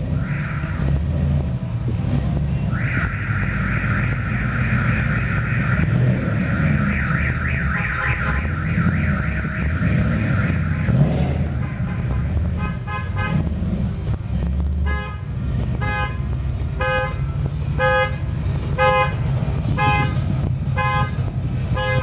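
Car alarm cycling through its tones. A fast-warbling siren sounds for about eight seconds, then after a short gap comes a run of pitched beeps or honks about once a second, over a steady low rumble.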